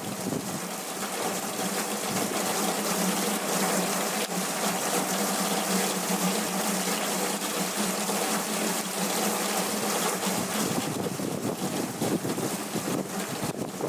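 Hurricane rain pouring hard with wind, a steady dense rush of water.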